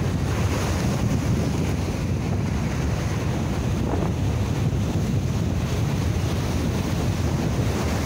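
Sea waves washing and breaking over a rocky shore in a strong wind, under a steady rumble of wind buffeting the microphone.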